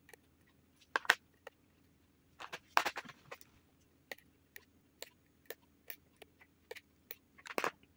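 Small scissors snipping rotted brown tissue from an orchid's stem: sharp clicks, a few scattered at first, then single snips about two to three a second in the second half, with a short cluster near the end.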